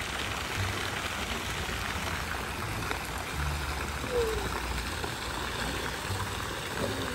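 Swimming-pool water sloshing and splashing steadily as a man swims with a small child riding on his back.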